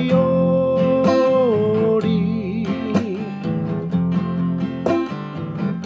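Man singing a Māori waiata to a strummed acoustic guitar. He holds a long note, drops to a lower wavering note about two seconds in, then lets the voice fall away while the guitar chords carry on.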